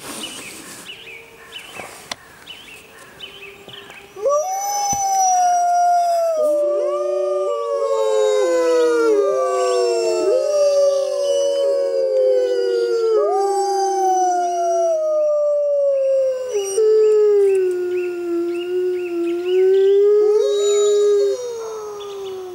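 A pack of gray wolves howling in chorus: several long howls at different pitches overlap, each sliding slowly downward. The chorus starts about four seconds in after a quieter stretch.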